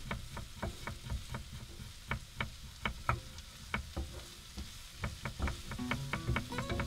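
Kitchen knife chopping fresh ginger on a wooden chopping board, sharp taps at an uneven pace, over onions sizzling gently in a frying pan as a wooden spoon stirs them.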